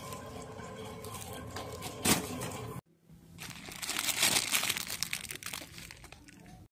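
Plastic-wrapped store packs crinkling as they are handled and taken off a shelf, most heavily in the second half, with a single sharp knock about two seconds in.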